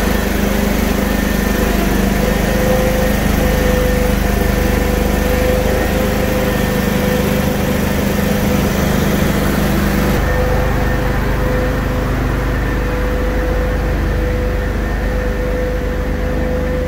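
Small engine running steadily. About ten seconds in its sound changes, with some of the higher hiss dropping away.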